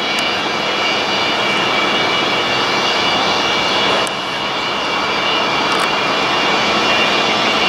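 The Antonov An-225 Mriya's six Progress D-18T turbofans running as the aircraft taxis: a steady jet rush with several high whining tones held over it. The level drops slightly about four seconds in.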